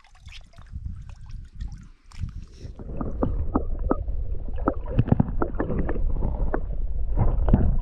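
Shallow lake water stirred as a carp is released, heard mostly through a camera held underwater from about two seconds in: a muffled rumble with many quick clicks and pops.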